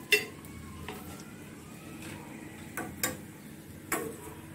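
Steel spatula clinking against a metal pan about five times while lifting fried puris out; the first clink is the loudest.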